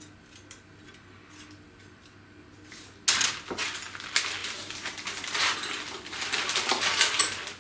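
Plastic packaging bag crinkling and rustling as plastic model-kit sprues are handled, starting about three seconds in.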